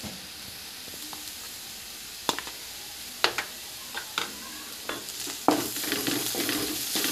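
Chopped onions with garlic and ginger sizzling in hot oil in a metal pan, with a steady hiss. A wooden spatula clicks against the pan a few times, then stirs the onions more busily and louder for the last second and a half.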